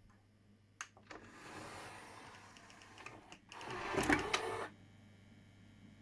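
Two sharp clicks, then a small mechanism whirring and rattling, louder for about a second before it stops abruptly.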